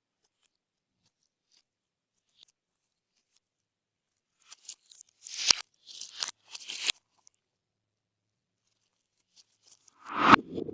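Slime being worked by hand, giving crackly popping and squishing sounds. There is a cluster of crackles about halfway through, then a louder squelching pop near the end.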